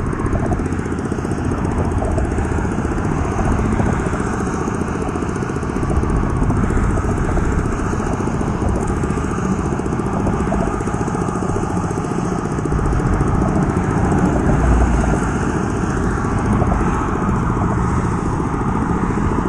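Loud, steady wind rumble on an exposed camera microphone, mixed with road noise from traffic on the bridge.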